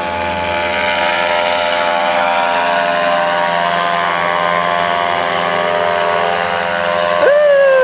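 Tandem paramotor's engine and caged propeller droning steadily as it climbs away overhead. Near the end a brief high held tone, louder than the engine, cuts in and falls slightly in pitch.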